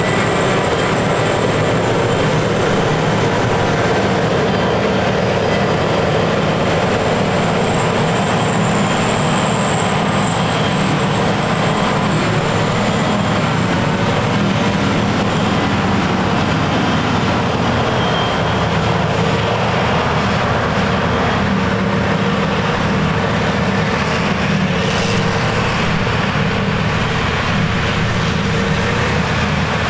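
John Deere 6950 self-propelled forage harvester chopping grass silage: a steady, heavy machine drone from the engine and cutterhead, with the tractor and trailer running alongside. A high whine sits on top for the first twelve seconds or so, then fades.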